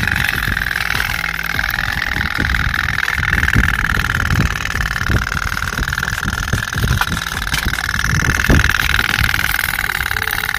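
Tin pop-pop (putt-putt) toy steam boats running on water, their flame-heated boilers pulsing in a rapid, steady buzzing putter, with irregular low thumps underneath.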